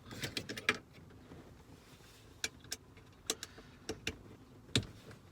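Sharp metallic clicks and clinks of an Allen wrench loosening the bolts of a car's shifter box: a quick cluster at first, then irregular single clicks, the loudest near the end.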